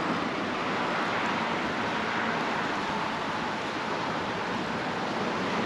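Steady rushing noise of wind and traffic passing on the highway bridge, with no single sound standing out.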